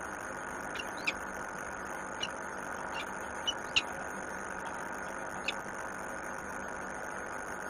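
Steady hum of city traffic far below, with about seven short, high bird chirps scattered through it.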